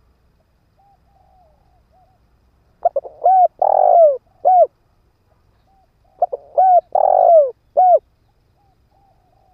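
Spotted dove cooing: soft coos, then two loud multi-note cooing phrases about three seconds apart. This is the calling of a decoy male, used to draw in wild doves.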